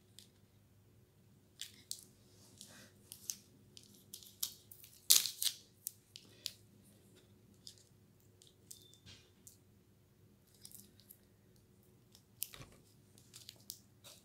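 Scattered clicks, crackles and rustles of wire leads and tape being handled while twisting the power leads onto a battery's terminals, with one louder crackle about five seconds in.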